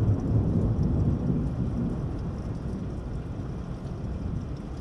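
Rolling thunder rumbling low and fading away over steady rain.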